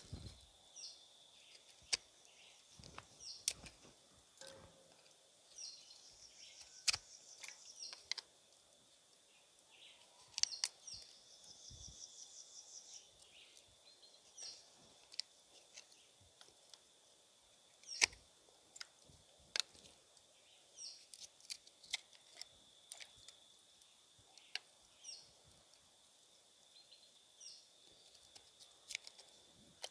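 Birds chirping over a steady high-pitched tone, with scattered sharp clicks and knocks from handling a husked coconut; the loudest knock comes about eighteen seconds in.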